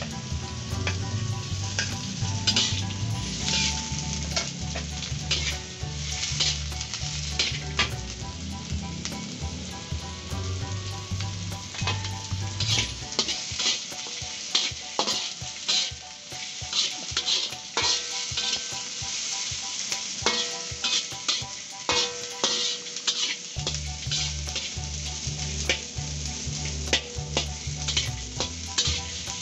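Chili slices, onion, ginger and whole spices frying in hot oil in a wide metal pan, with a steady sizzle. A metal spatula scrapes and taps against the pan as they are stirred. A low rumble runs under it for the first half and again near the end.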